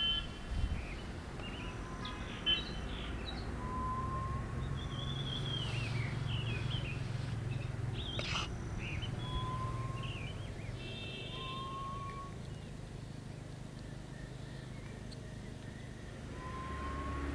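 Birds calling: a hill partridge's short rising whistles, repeated a few times, with higher chirps and trills from other birds, over a low steady hum.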